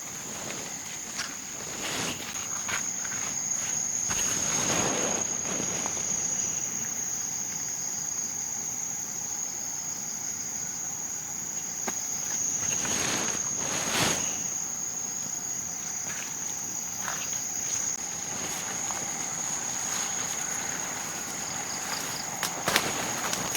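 Steady, high-pitched drone of insects in the forest. A few louder swishing, rustling noises come and go, and there are a few sharp clicks near the end.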